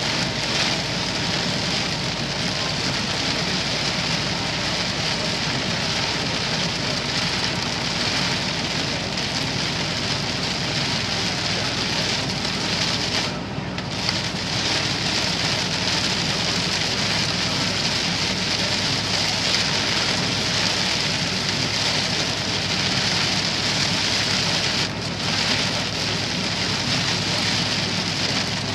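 Heavy rain hissing steadily on a vehicle's windshield and body, heard from inside while driving, over a low steady hum. The hiss dips briefly twice, about halfway through and near the end.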